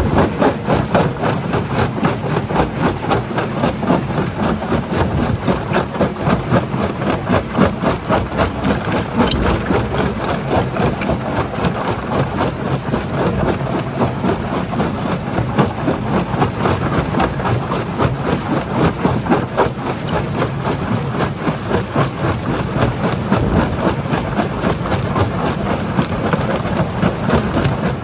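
Stone crusher running, a steady machine drone under dense, continuous clatter of rock being crushed.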